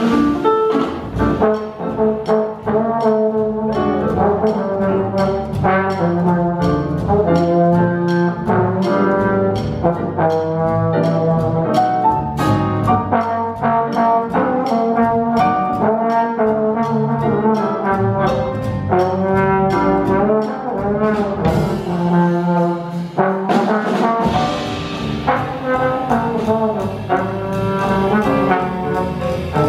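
A trombone plays a jazz line over a live rhythm section of piano, upright bass and drums, with a steady cymbal beat.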